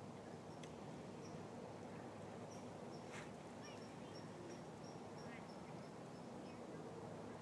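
Hushed outdoor schoolyard during a moment of silence: a steady low hum with no voices, and a run of faint high bird chirps, several a second, in the middle.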